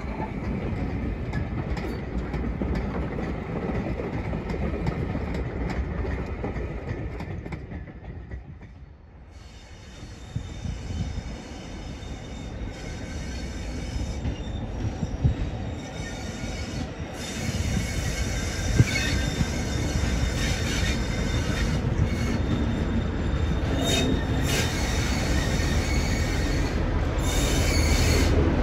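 Train running on the rails with a steady rumble. The sound drops away briefly about eight seconds in, then builds again, and high wheel squeal with several tones comes in over the second half.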